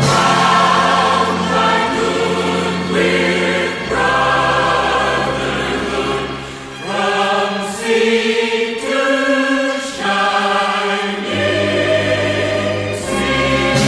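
Choir singing with accompaniment: sustained choral chords changing every second or two.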